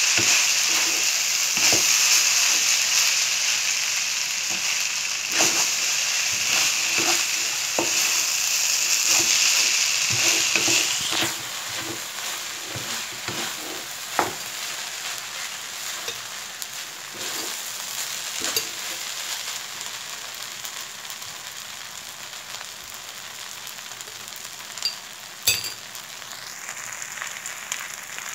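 Fried rice sizzling in a metal wok as it is stirred and tossed with a wooden spatula, with repeated scrapes against the pan. The sizzle is loud at first and drops to a softer hiss about eleven seconds in, and there is a sharp tap near the end.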